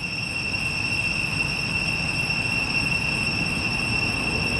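Steady high-pitched insect drone, one unchanging tone with fainter overtones, over a low rumble that slowly grows louder.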